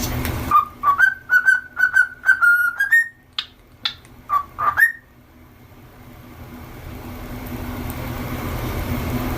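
Cockatiel whistling: a quick run of short whistled notes for about four seconds, ending in two upward-sweeping whistles. A steady low background hum fills the start and builds again after the whistling stops.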